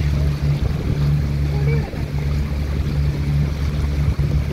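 Motorboat engine running with a steady low hum, with water rushing and splashing along the hull as the boat moves.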